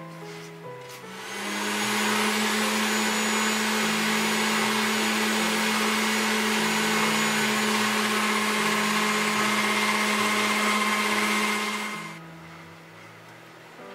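Electric pasta machine's motor running with a steady hum as it cuts a sheet of fresh dough into noodles; it starts about a second in and switches off near the end.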